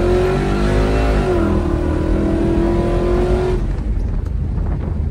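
High-horsepower 1999 Chevy S10 street truck's engine running hard at high revs during a pass, with a short dip in pitch about a second in. The engine note cuts off sharply about three and a half seconds in.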